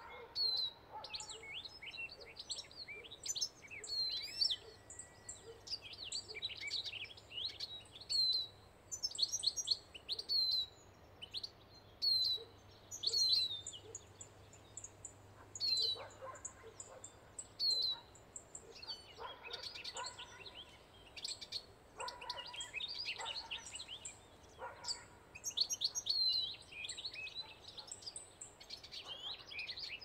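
Small songbirds chirping and twittering, with many short high calls and song phrases and a short falling note repeated every second or two. The birds are typical of the caged decoy finches: goldfinches, a siskin and a linnet.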